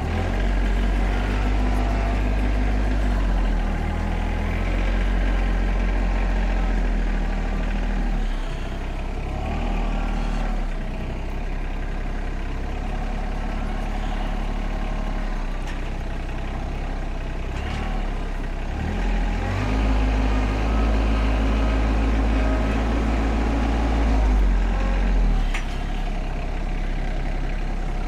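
TYM compact tractor's diesel engine running, its drone swelling and easing several times as the front-loader grapple lifts and sets down a log.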